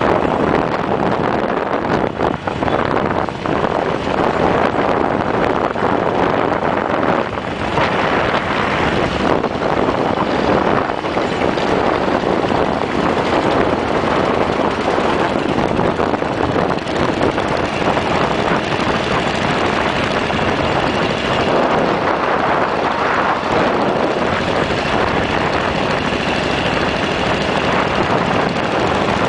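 Steady wind rush over the microphone of a Harley-Davidson chopper at riding speed, mixed with the motorcycle's V-twin engine running underneath.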